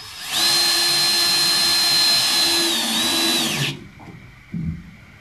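Cordless drill driving a screw into a wooden board, running at a steady high whine for about three seconds, dipping briefly in pitch near the end and then winding down.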